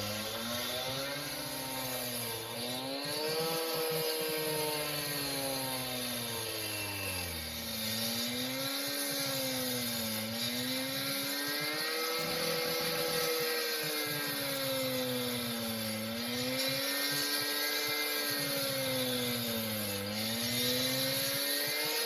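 Engine of a working machine, such as an excavator, running. Its pitch rises and dips again every few seconds.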